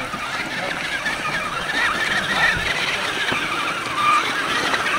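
Electric motor and gears of a scale RC crawler truck whining as it climbs a steep slope, the pitch wavering up and down with the throttle.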